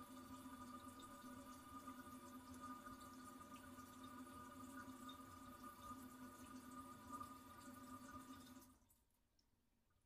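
Toilet tank refilling after a flush: a faint, steady hiss of water through the fill valve, with a steady humming tone, that cuts off suddenly about nine seconds in as the valve shuts.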